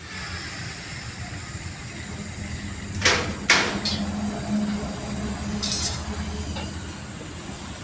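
Two sharp metallic knocks about half a second apart, roughly three seconds in, over a steady low background rumble.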